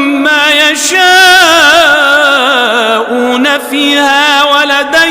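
Male Quran recitation in melodic tajweed style: one voice holding long, ornamented notes with a wavering pitch that sinks through the middle, broken by two short pauses for breath.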